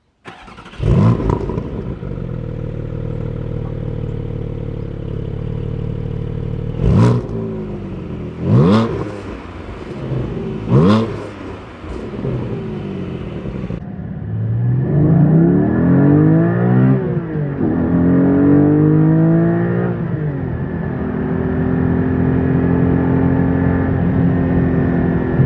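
Porsche 718 Spyder's 4.0-litre naturally aspirated flat-six, with the Sports Exhaust open, starts up with a quick flare and settles to an idle. It then gets three sharp throttle blips. After a cut, the engine pulls under acceleration with its pitch rising and falling through several sweeps, then holds a steadier, slowly climbing note.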